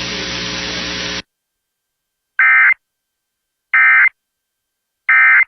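A steady hiss with a low hum cuts off suddenly about a second in. Then come three short, identical buzzing data bursts of Emergency Alert System SAME tones, about 1.3 s apart: the end-of-message signal that closes the alert.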